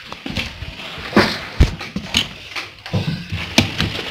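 Handling noise: irregular knocks and rustles as a phone is moved about.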